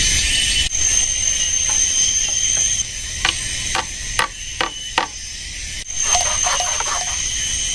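Steady high-pitched drone of forest insects, with a run of short, sharp knocks through the middle.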